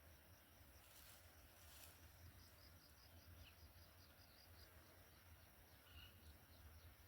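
Near silence with faint insect chirping: a steady run of high ticks, about three a second, over a low hum.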